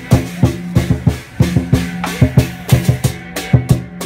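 Lion-dance percussion: a large Chinese drum beaten in a fast, uneven rhythm with cymbals crashing along.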